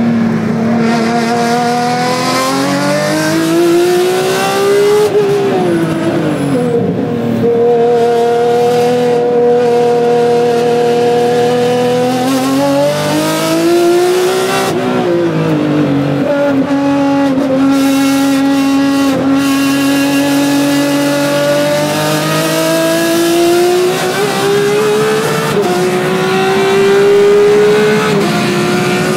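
Ferrari 599XX's V12 engine at high revs under hard driving, heard from onboard. Its pitch climbs steadily as it accelerates and drops at each gear change, with a few larger swings where the revs fall and rise again.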